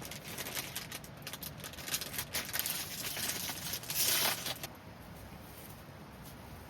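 Close rustling and crinkling with many small crackling clicks, swelling to a loud rustle about four seconds in and stopping abruptly shortly after.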